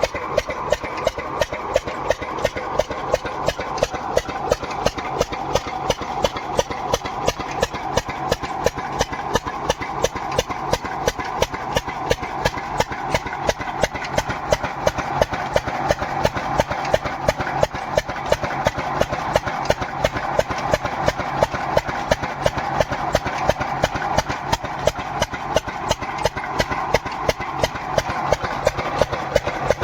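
Engine running steadily, with a fast, even, regular beat of firing pulses.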